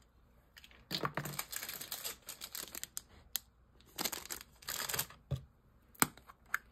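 Clear plastic bag of dice crinkling as it is handled, in a few irregular bursts, with a couple of sharp clicks, the last one near the end.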